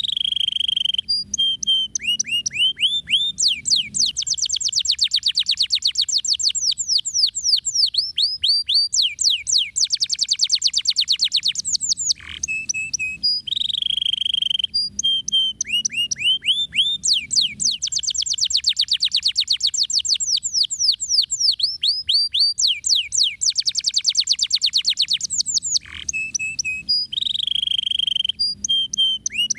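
Domestic canary singing without pause: long, fast rolling trills of quick falling high notes, many to the second, broken by short held whistled notes.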